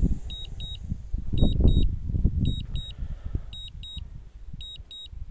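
DJI Phantom 3 Advanced controller's warning beeps: short high double beeps about once a second, signalling that the drone is on return-to-home with a low battery. A low rumbling noise runs underneath.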